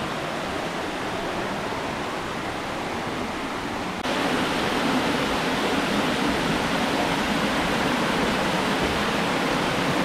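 Mountain stream water pouring over a small rocky cascade into a pool, a steady rush. It becomes suddenly louder about four seconds in, heard from closer to the cascade.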